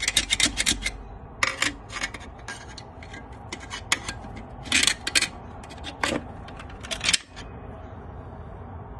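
Screwdriver and snap ring scraping and clicking against metal as the snap ring is worked into its groove inside a 4L60E transmission case. The scrapes and clicks come in short irregular clusters and stop about seven seconds in.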